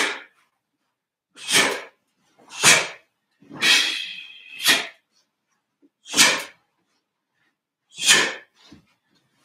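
A taekwon-do practitioner breathes out sharply and forcefully with each technique of a pattern, about seven short blasts spaced one to two seconds apart. The one around four seconds in is longer and has a voiced edge.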